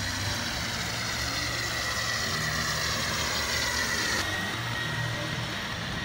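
Comzu F3313 industrial vacuum cleaner running steadily with a high whine over a hiss of rushing air, its fixed floor nozzle being pushed across a concrete floor.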